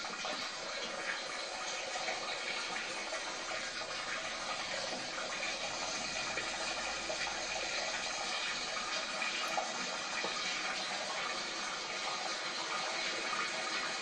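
Water jet from a hose spraying steadily into a steam ploughing engine's boiler, flushing out loose lime scale and rust during a boiler washout.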